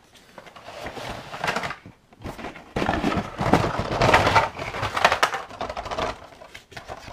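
Cardboard-backed Hot Wheels blister packs and a cardboard box divider being handled and spread out on a table: rustling, scraping and clattering of card and plastic, loudest in the middle.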